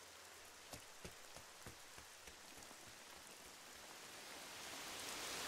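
Faint, steady rainfall with a few separate drops ticking in the first couple of seconds; the rain slowly grows louder toward the end.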